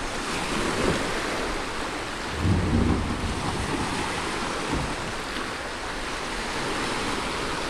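Small waves breaking and washing onto a shallow shore, with wind rumbling on the microphone.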